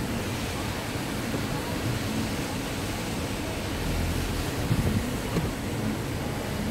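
Steady rumble and rush of a slowly moving vehicle, with wind on the microphone.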